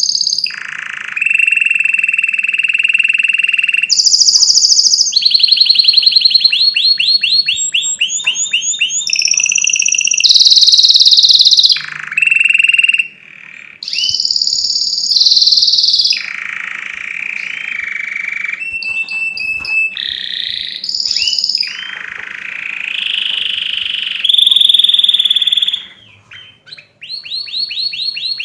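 Domestic canary singing loudly: one high phrase after another, held whistling notes alternating with fast rattling trills, with a brief drop near the end.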